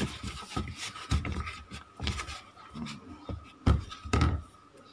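Hands kneading and squeezing tapioca-starch dough in a plastic bowl, with irregular soft thuds and two louder knocks near the end. The dough is kneaded smooth and no longer sticky.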